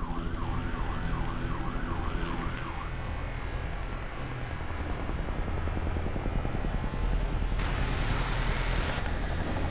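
Helicopter rotor running with a steady low pulsing rumble. For the first three seconds a siren wails up and down about two and a half times a second, and near the end a swell of noise rises in.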